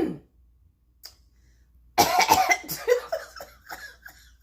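A woman coughing in a fit of several rough coughs, starting about two seconds in and dying away. Her throat is irritated from eating limes coated in salt, which she says nearly made her choke.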